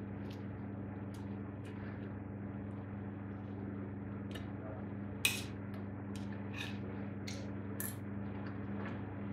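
Knife and fork clinking and scraping on a ceramic plate as food is cut, a string of light clicks with the loudest clink about five seconds in. A steady low hum runs underneath.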